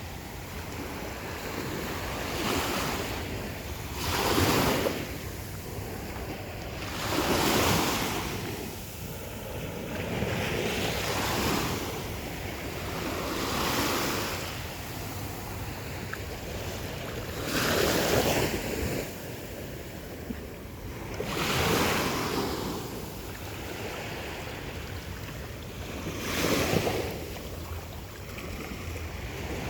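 Atlantic Ocean surf breaking on a sandy beach, with a wave crashing every three to four seconds and a steady hiss of wash between them.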